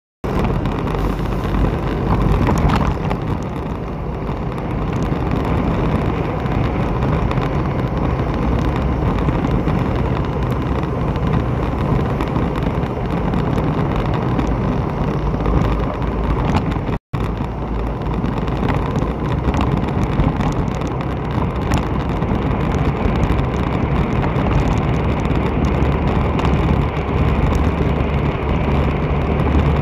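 Steady rumble of road travel heard from a moving vehicle on a city street, with wind rumbling on the microphone. The sound cuts out for a split second twice, right at the start and a little past halfway.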